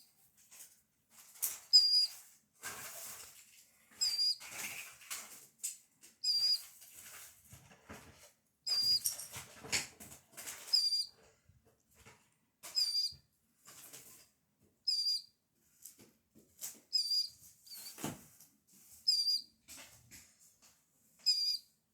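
Baby killdeer chicks peeping: a short, high-pitched call repeated about every two seconds, with soft rustling and clicks from the chicks being handled and fed.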